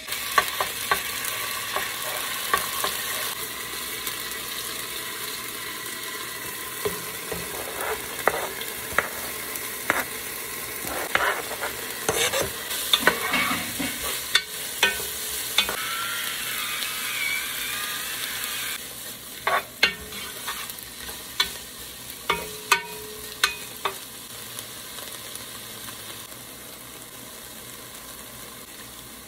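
Food sizzling in hot oil in a nonstick pot, first a spoonful of paste and then diced onion, carrot and green onion, while a spatula stirs with scrapes and sharp taps against the pot. The sizzle starts suddenly at the beginning and settles to a softer hiss in the last third.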